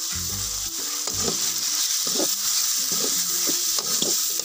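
Goat liver, onions and spices sizzling in oil in a large aluminium kadai, stirred with a perforated metal ladle that scrapes against the pan.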